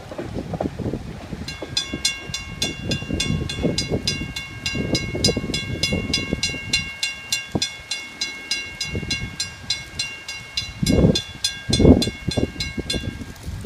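Railroad grade-crossing bell ringing steadily, about three to four strikes a second, over low rumbling. Two heavier low thumps come near the end.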